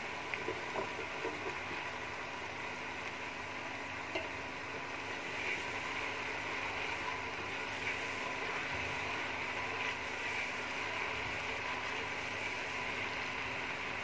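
Ginger-garlic paste sizzling steadily in hot oil in an aluminium pressure cooker as it is fried, with a few light clicks of the slotted spoon against the pot.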